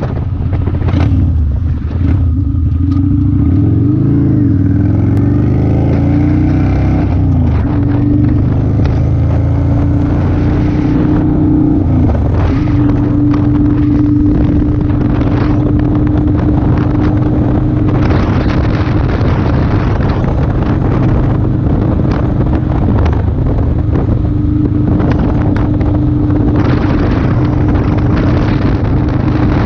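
2008 Kawasaki Vulcan 900 Classic's V-twin engine running under way. Its pitch rises and falls over the first several seconds, then holds steady at cruising speed, with wind and road noise on the microphone.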